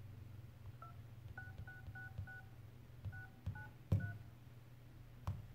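iPhone 8 Plus dialer keypad playing short two-tone keypad beeps as digits are tapped in, about eight in quick succession, with a few soft taps and one sharper knock about four seconds in.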